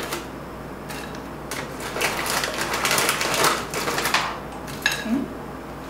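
Plastic bag of vegetables crinkling and rustling as a hand scoops from it, with irregular clicks and rattles of the pieces dropping onto a ceramic plate.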